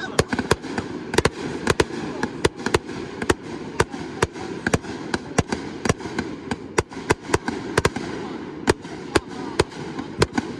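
Aerial fireworks bursting in a grand finale barrage: sharp bangs in quick, uneven succession, about three a second, over a steady low rumble.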